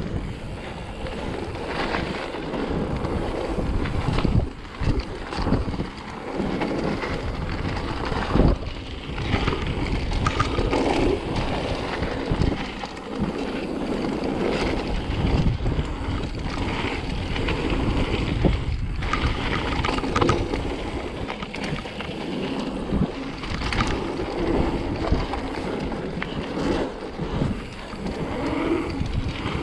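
Wind buffeting the microphone over the rumble and rattle of a mountain bike descending a rough dirt trail, with frequent knocks from bumps and roots.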